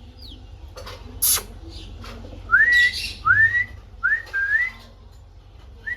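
Ringneck parrot giving a sharp shriek about a second in, then a run of four short rising whistles.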